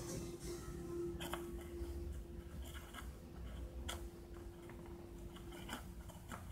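Scattered light clicks and scratches of a cat's claws and teeth working at a string and the edge of a cardboard puzzle box, over a steady faint hum that stops near the end.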